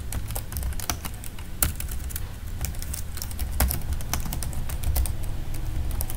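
Computer keyboard being typed on: a run of quick, uneven key clicks as a short title is typed, over a low steady hum.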